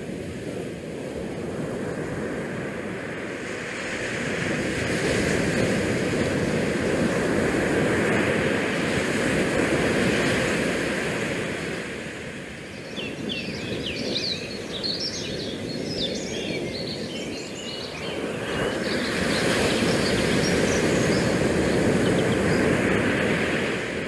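Wind rushing over the microphone, swelling and easing in slow gusts, with a spell of small birds chirping about halfway through.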